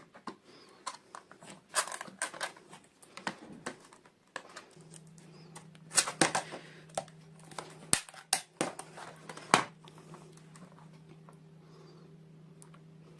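Small plastic toy pieces and packaging handled during an unboxing: irregular clicks and taps with some crinkling, loudest in a cluster of sharp clicks midway. A faint steady low hum comes in about a third of the way through.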